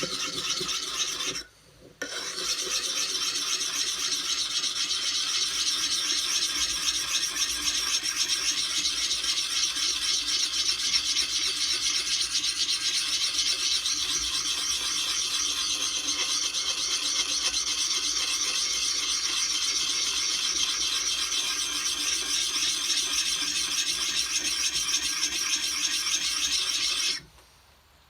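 A sharpening puck rubbed in circles over the steel cheek of a swamping-pattern axe: a steady, gritty rasping that stops briefly about a second and a half in and again near the end.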